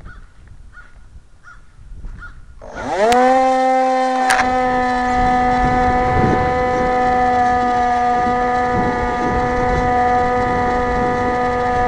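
Electric motor and pusher propeller of a Multiplex EasyStar RC plane, heard from a camera on board: it spins up with a quick rising whine about three seconds in, then holds a loud, steady whine. Two sharp clicks come just after the spin-up.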